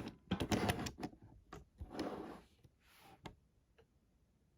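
Plastic toy figures being handled and set down: several light clicks and knocks of hard plastic with some rustling, busiest in the first second.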